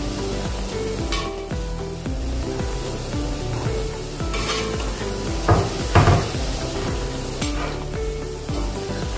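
Shakarpara dough pieces sizzling as they fry in hot oil in a pan, while a spoon stirs them gently and knocks and scrapes against the pan several times, loudest about six seconds in. Background music runs underneath.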